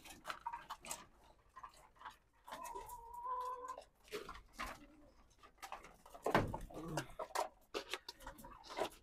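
Caged domestic pigeons and chickens calling, with one drawn-out note held for about a second a third of the way in. A few loud knocks and rattles from the metal cages come about two-thirds of the way through.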